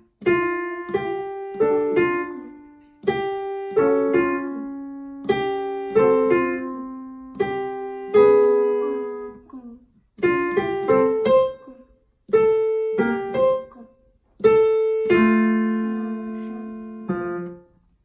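Digital piano played by a young child: a simple melody of single notes and a few two-note chords, in short phrases with brief pauses between them. The last phrase ends on held notes that die away near the end.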